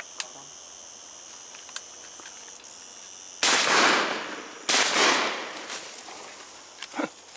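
Two shotgun shots just over a second apart, each trailing off in a long fading echo, fired at doves or pigeons in flight. Steady insect chirring runs underneath, and a few faint clicks come near the end.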